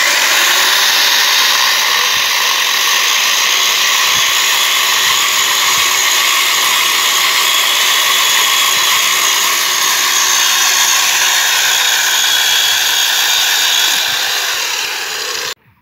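Corded electric chainsaw (METRO brand) starting at once and running steadily, its chain cutting through a log. The noise eases a little near the end and then cuts off suddenly.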